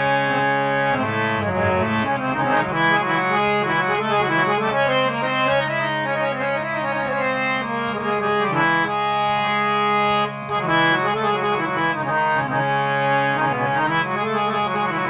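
Hand-pumped harmonium playing a melody over steady low held notes, its bellows pumped by hand. The sound dips briefly about ten seconds in.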